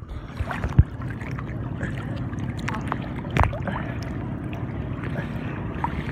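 Steady low running of a nearby outrigger boat's engine, with two brief sharp splashes close to the microphone, about a second in and again halfway through.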